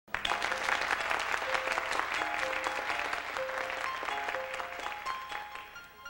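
Studio audience applauding, the clapping dying away over the last couple of seconds, while a slow melody of held keyboard notes plays over it.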